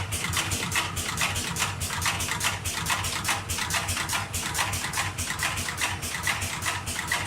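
Automatic double-sided battery spot welding machine at work, making a fast, even run of sharp clicks, about five or six a second, over a steady low hum.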